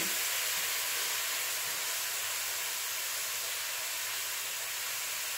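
Chopped onion and soaked dried mushrooms sizzling steadily in lard and meat drippings in a frying pan.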